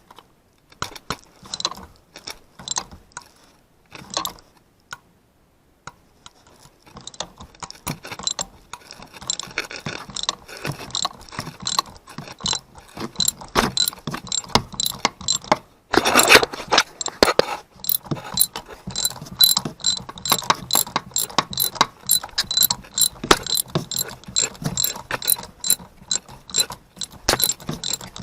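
Ratchet wrench clicking as it turns, working the rear spark plug of a 2004 Honda Odyssey loose. Scattered clicks at first, then quick, steady ratcheting from about eight seconds in, with a louder clatter about halfway.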